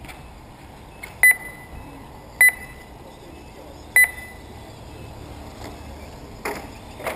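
Three short, high electronic beeps from the race timing system, irregularly spaced about a second or more apart, over steady background noise; the kind that signals RC cars crossing the lap-counting line.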